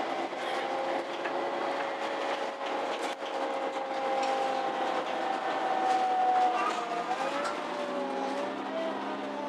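MAN Lion's City G articulated city bus heard from inside while driving: engine and road noise with a steady drivetrain whine, whose pitch dips and shifts about seven seconds in.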